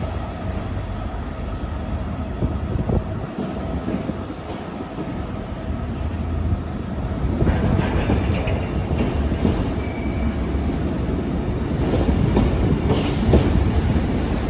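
A Class 66 diesel freight locomotive's EMD two-stroke V12 engine working as the train pulls away. From about seven seconds in, the wheels get louder, clattering over rail joints, with a brief wheel squeal.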